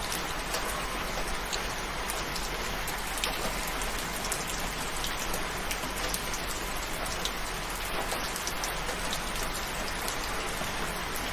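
Steady rainfall: an even hiss of rain with many individual drops ticking through it.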